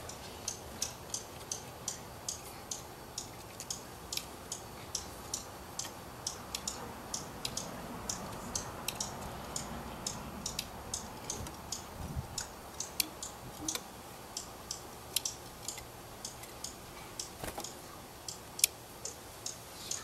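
Sharp, high ticking chip calls, about two to three a second and uneven in loudness, from an adult dark-eyed junco near its nest.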